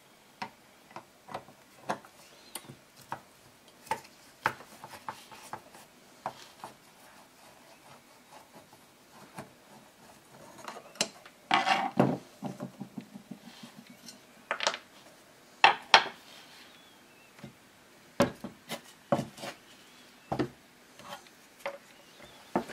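Scattered metallic clicks, clinks and light knocks as the screws holding the joining bar of a rack of four Keihin CV carburetors are taken out and the small screws and parts are handled and set down. The clicks come irregularly, with louder clusters of clinks around the middle.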